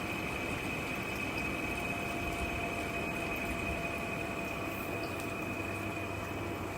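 Portable air conditioner running steadily: an even whooshing hum with a constant high whine on top.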